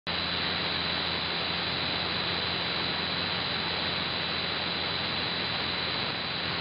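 Shortwave AM receiver static: the steady hiss of a Perseus software-defined receiver tuned to 15.100 MHz in the 19-metre band, with no station audible. A thin steady high whistle and a low hum sit under the hiss.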